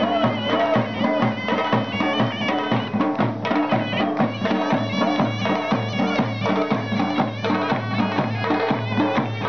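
Live Chitrali folk dance music: a dhol drum beats a steady rhythm under a reed pipe playing a shrill, wavering melody.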